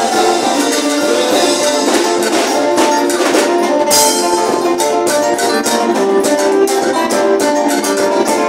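Live church worship music: an amplified band with electric guitar, keyboard and drums, and a man singing through a microphone.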